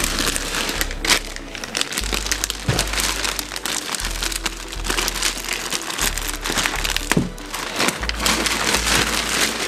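Plastic wrapping crinkling and rustling as plastic-wrapped chair parts are handled and lifted out of a cardboard box. Background music with a deep bass line plays underneath.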